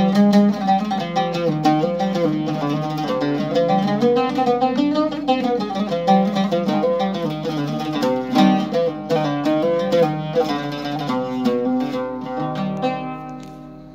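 Seven-course ebony oud plucked with a plectrum, playing a fast melodic run of quick repeated notes. Near the end the last notes are held and ring out, fading away.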